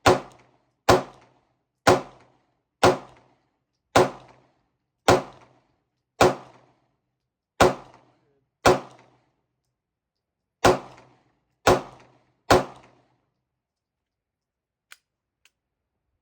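A handgun fired about a dozen times at a slow, steady pace of roughly one shot a second, each shot followed by a short echo, the string ending a few seconds before the end, with two faint clicks after it.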